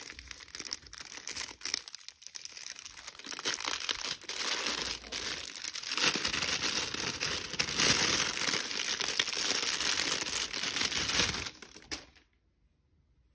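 Thin plastic bag crinkling as a camera lens is slid out of it. The crinkling grows louder and denser partway through, then stops suddenly near the end.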